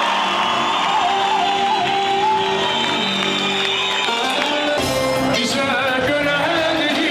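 Live music with a woman singing into a microphone through a hall's PA, the notes held long, with a crowd shouting and cheering along; a louder burst of shouting and noise comes about five seconds in.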